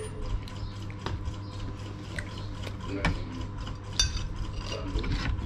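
Metal spoons clinking and scraping against plates and bowls now and then during a meal, the sharpest clink about four seconds in, over a steady low hum.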